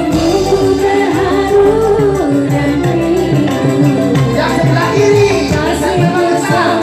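Live dangdut band music amplified through a stage PA, with a woman singing the melody over keyboard, electric guitar and drums.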